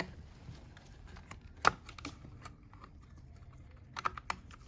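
A few sharp, scattered clicks and taps of hard plastic vacuum parts being handled and fitted together, the loudest about one and a half seconds in and a small cluster near the end.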